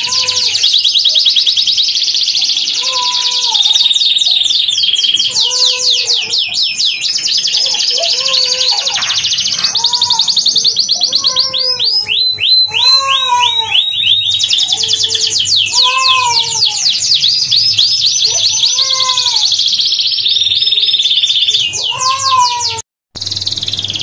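Domestic canary singing a long, continuous song of fast trills and rolling runs. Underneath, a lower rising-and-falling note repeats every second or two, and the sound cuts out for a moment near the end.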